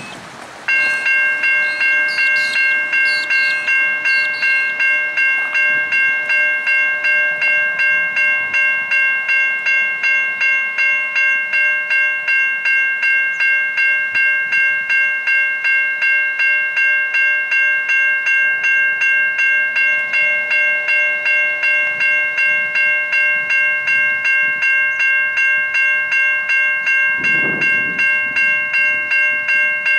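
Level crossing warning bell starting up about a second in and then ringing steadily at about two strokes a second, signalling a train approaching the crossing.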